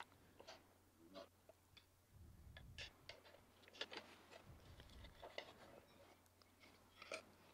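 Faint, scattered clicks and light taps of metal bicycle crankset parts being handled and fitted together: a Rotor Aldhu crank arm and spindle going into a Power2Max spider with chainrings.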